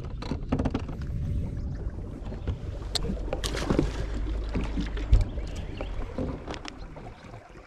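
Low rumble of wind and water noise around a small fishing boat, with scattered knocks and clicks on the boat. The loudest is a sharp thump about five seconds in, and the rumble fades near the end.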